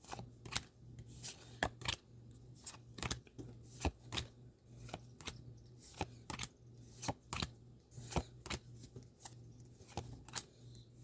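Pokémon trading cards being flipped through one at a time in the hand: an irregular run of short, sharp card clicks and snaps, about two or three a second, over a faint low hum.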